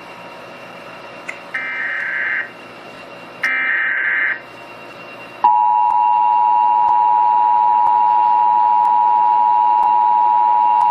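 Emergency Alert System test tones: two short bursts of shrill warbling digital data, about a second each, which carry the coded alert header. About five seconds in, the steady, louder two-tone attention signal begins and holds without a break, announcing that an alert message follows.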